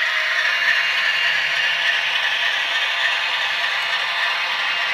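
TT-scale model train running along the layout's track, a steady rattling hiss with nothing deep in it.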